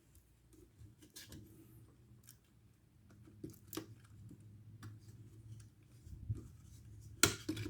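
Scattered light clicks and taps from small tools and plastic and metal netbook parts being handled during disassembly. The clicks come more often in the second half, and the loudest comes near the end.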